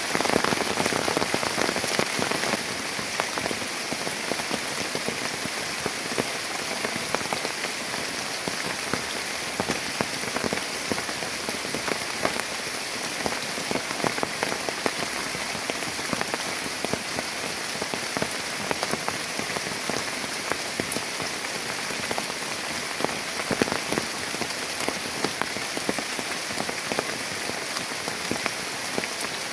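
Heavy rain falling steadily, a dense hiss with many sharp individual drop hits on a near surface, a little heavier for the first couple of seconds.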